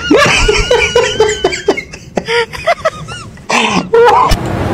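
Loud, high-pitched laughter in short bursts, breaking into harsh cough-like outbursts in the second half.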